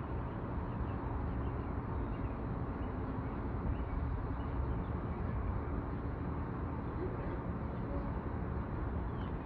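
Steady low outdoor background rumble on a station platform, with a few faint high chirps, likely from birds.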